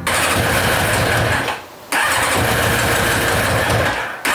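Yamaha motorcycle's electric starter cranking the engine in two goes, about a second and a half and then about two seconds, without the engine catching. The engine will not start with freshly cleaned carburettors, which the owners take for an electrical fault, perhaps the HT leads.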